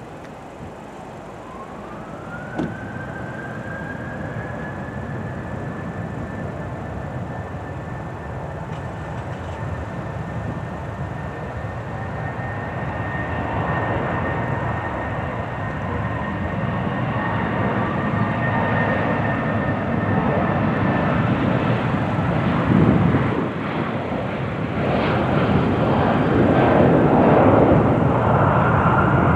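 Jet airliner engines: a high whine glides up in pitch about two seconds in and then holds steady, while the broad engine noise builds gradually and is loudest near the end.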